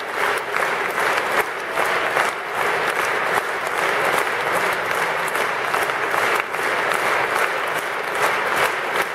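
A large concert-hall audience applauding: steady, dense clapping that goes on without a break.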